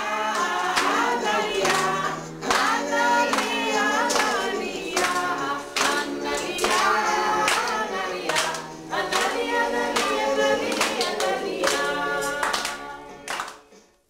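A group of young children singing a song together, with hands clapping along to the beat; the singing breaks off suddenly near the end.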